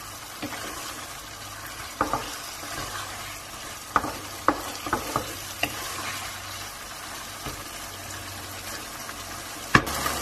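Creamy curry gravy sizzling in a nonstick wok as a wooden spatula stirs and scrapes through it, with a few sharp clicks of the spatula against the pan between about two and six seconds in, and one louder click near the end.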